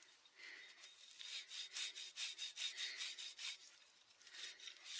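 Scotch-Brite abrasive pad being rubbed back and forth by hand on a chainsaw crankshaft to polish it: quick, even scrubbing strokes, about four a second, easing off briefly near the end.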